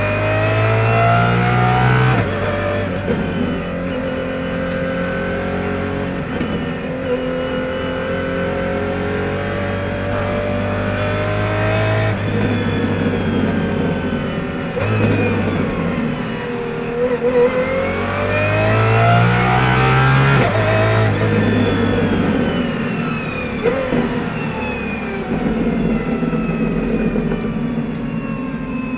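De Tomaso P72 prototype's naturally aspirated 6.3-litre V12 revving hard under acceleration. Its pitch climbs and drops suddenly at gear changes, about two seconds in and again past the middle, then falls away near the end as the car slows.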